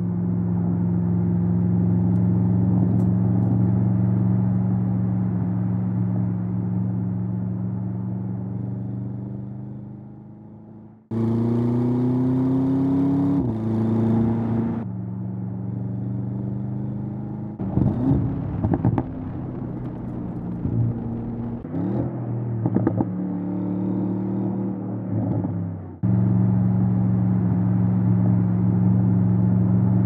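Audi RS7 Sportback Performance's 4.0-litre twin-turbo V8 and exhaust, heard in several spliced passes. A steady low drone at cruise slowly fades, then breaks off suddenly to the engine pulling with rising pitch and a gear change. Next comes a stretch of uneven revs with sharp cracks and pops, and the steady drone returns near the end.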